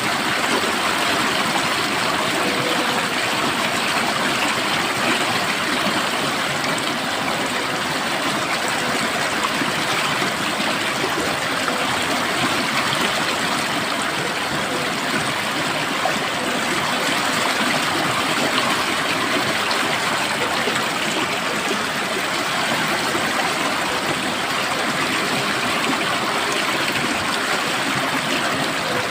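Water flowing steadily in a stream, an even rushing and burbling that never lets up.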